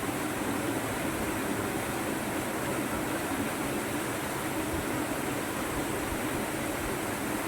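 Waterfall and fast river water rushing in a steady, unbroken roar of noise.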